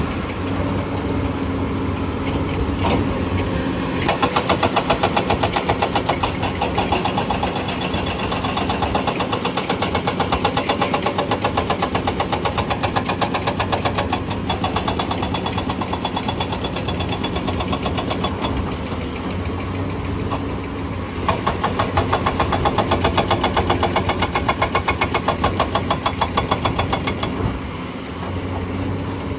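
Hydraulic rock breaker on a Komatsu PC200 excavator hammering rock in a fast, even run of blows, several a second, over the steady running of the excavator's diesel engine. The hammering starts about four seconds in, stops for a few seconds past the middle, then runs again until shortly before the end.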